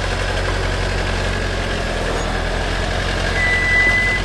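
An off-road 4x4's engine running at low revs, a steady low hum. A high steady beep sounds for under a second near the end.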